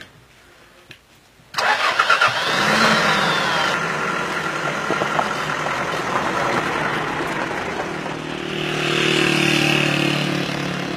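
Small 4x4 jeep's engine running and revving as it drives off over a dirt track, cutting in sharply about a second and a half in.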